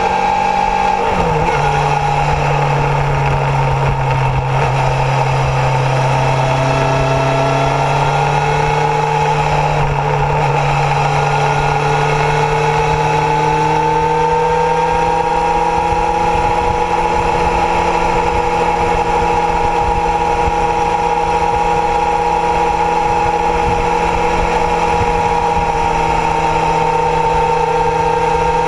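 Kawasaki Zephyr's air-cooled inline-four engine running under way on the road, heard from the bike, with a steady engine note. The pitch steps down about a second in, then rises slowly around the middle.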